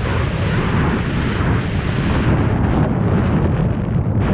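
Wind buffeting the microphone of a camera on a moving motorcycle: a loud, steady rumble, heaviest in the low end, with the bike's engine and road noise mixed in.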